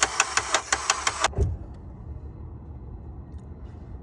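Honda CR-V engine cranking on its starter without catching: a rhythmic clatter of about six beats a second that stops about a second in with a thump, leaving a low hum. The noise on cranking comes from the timing chain, which has jumped valve timing after its tensioner failed.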